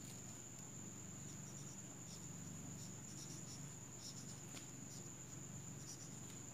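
Whiteboard marker writing on a whiteboard: faint, irregular short strokes as the characters are written, over a steady high-pitched whine.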